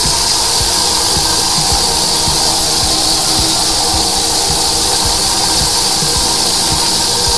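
High-pressure drain jetter spraying water to clear a blocked restaurant drain: a loud, steady hiss, with a steady hum and scattered low thumps underneath.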